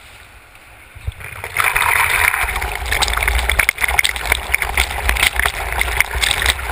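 River water rushing and splashing over a GoPro in its waterproof housing, mounted at the surface on a river surfboard. Spray and droplets crackle against the housing over a low rumble of churning water. It swells up about a second in and cuts off sharply at the end.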